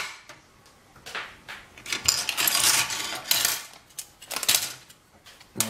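Plastic construction-kit plates and beams clattering and clicking against one another and the wooden tabletop as they are picked up, shuffled and set down, in irregular bursts, the busiest from about two to three and a half seconds in.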